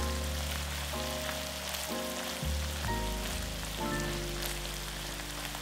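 Background music with notes and bass changing every half second or so, over a steady crackling sizzle of food frying in oil in a pan.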